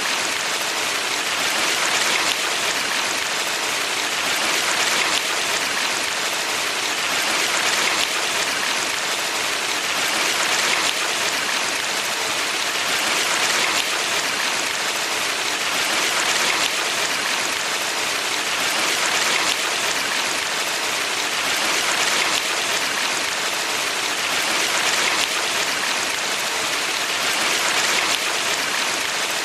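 Valley stream water rushing in a steady hiss, swelling slightly about every three seconds.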